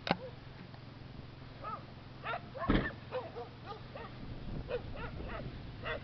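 Farm dogs barking repeatedly in short, arching barks over the faint steady drone of a distant ATV engine, with a sharp click at the start and a thump about halfway through.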